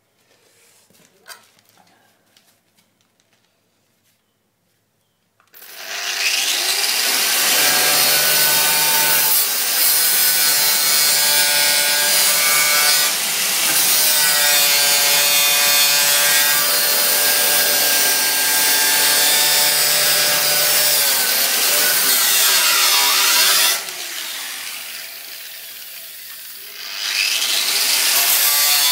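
Angle grinder grinding into the rusted steel of a van's wheel arch: it starts loud about five seconds in, its pitch sagging and recovering as it is pressed into the metal. Near the end it goes quieter for a few seconds, then bites into the metal again.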